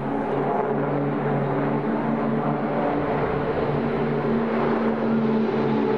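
Formation of nine Pilatus PC-7 turboprop trainers flying overhead: a steady propeller and engine drone with several held tones, one more tone joining about four seconds in.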